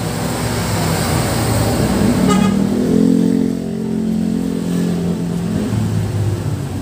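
A motor vehicle passing on the street, its engine note swelling about two seconds in, loudest around three, and fading by about five seconds, over steady traffic noise.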